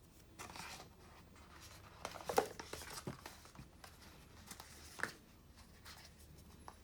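Hands handling an unboxed watch and its packaging: scattered rustles and light clicks and knocks, with a brief rustle just under a second in, a cluster around two to three seconds in, and a sharper knock about five seconds in.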